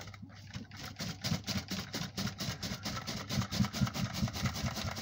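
Lidded plastic bait tub being shaken hard, a wet hemp-and-corn particle mix sloshing and rattling inside in a rapid, even rhythm. The shaking works the liquid glug through the particles.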